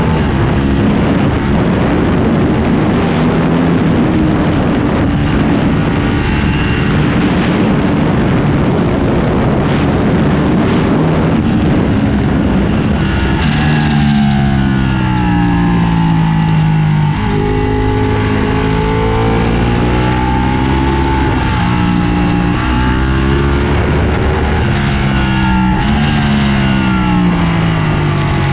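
Ducati 1299 Panigale Anniversario's Superquadro L-twin engine running hard on track. For the first half it sits under a dense rushing noise; about halfway through, the rush drops and the engine note clearly rises and falls again and again with throttle and gear changes.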